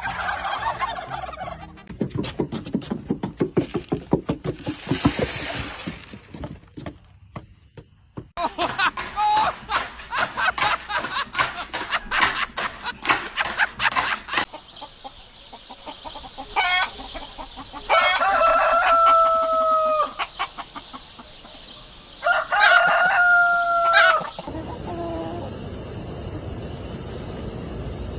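Chickens clucking in quick runs, then a rooster crowing twice, each crow held for about two seconds. It ends in a few seconds of steady noise.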